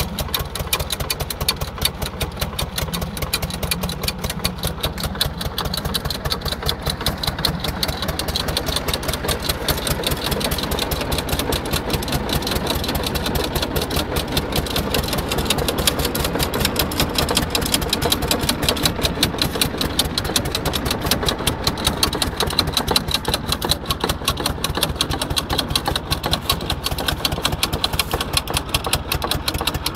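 Tractor-mounted Vicon pendulum fertiliser spreader running off the PTO, its swinging spout mechanism making a fast, even mechanical clatter over the steady tractor engine.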